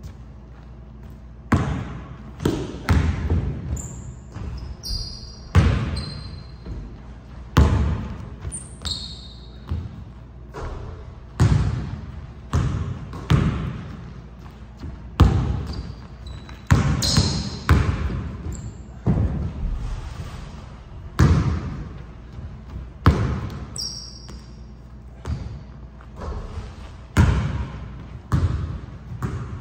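Basketball bouncing and dribbling on a hardwood gym floor, irregular thuds that echo in the large hall. Sneakers squeak briefly on the floor a few times.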